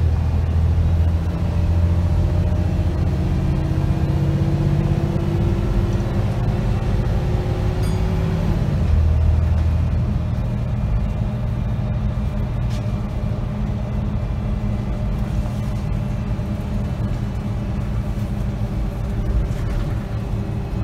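Volvo B7RLE bus's six-cylinder diesel and ZF automatic gearbox, heard from inside the cabin, pulling under acceleration with a slowly rising whine. It changes up about eight or nine seconds in, then runs on more steadily and a little quieter.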